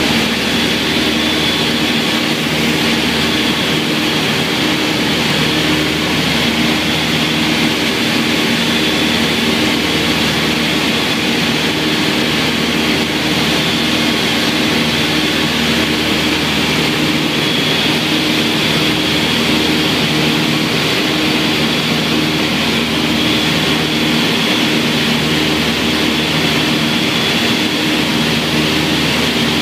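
Twin piston engines and propellers of a light twin-engine aircraft droning steadily, heard from inside the cockpit. A high whine rides on the drone and swells and fades slowly.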